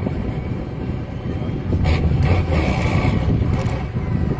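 Off-road truck's engine working hard under load as the truck climbs out of a muddy dip, getting louder about two seconds in.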